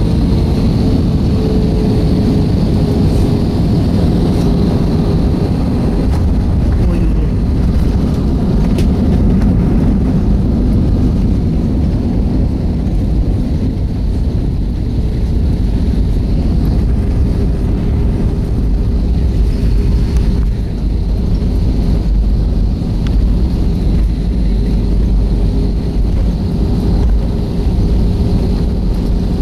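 Cabin noise of an Airbus A320 airliner near landing: a steady, loud, deep rumble of engines and rushing air, with a steady hum over it.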